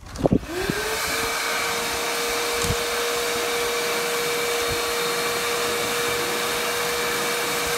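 Wet/dry shop vacuum switched on and running, its motor spinning up to a steady whine in the first second, sucking packed debris out of a mower deck through the hose, with a few knocks of the nozzle and debris.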